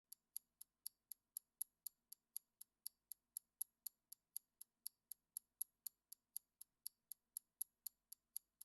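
Clock-ticking sound effect counting down the answer time: faint, evenly spaced ticks, about four a second.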